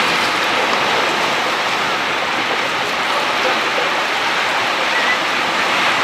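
Storm surf on the Black Sea: waves breaking and washing over shoreline rocks, a steady rush of water.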